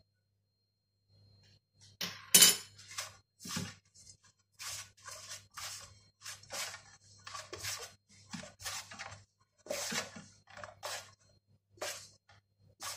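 Hands kneading dough in a stainless steel bowl: irregular scrapes, taps and knocks of fingers and dough against the metal, starting about two seconds in, the loudest just after.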